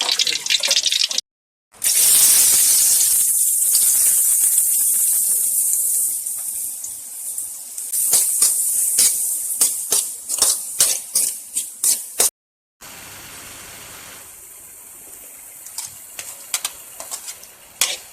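Food frying in hot oil in a pan: a loud, steady sizzle at first that eases off, with a spoon clinking and scraping against the pan as it is stirred. Twice the sound is broken by a brief silent cut.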